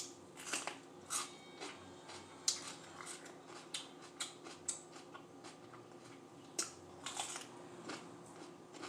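Close-miked chewing of raw mini sweet peppers: irregular crisp crunches and small mouth clicks, with no set rhythm.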